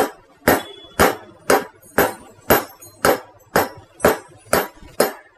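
Hammer tapping a bronze wear ring down into the bore of a centrifugal pump's back plate: steady blows about two a second, each with a short metallic ring, worked around the ring to drive it in evenly.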